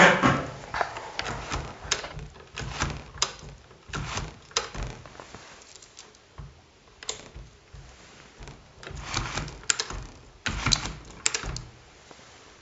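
Smith-Corona Sterling manual typewriter being typed on: sharp clacking keystrokes in irregular runs with short pauses, the loudest strike right at the start.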